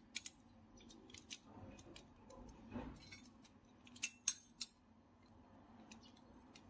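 Hand tools being handled on a copper refrigerant pipe: a few scattered, faint metallic clicks and clinks, with a quick cluster of three about four seconds in.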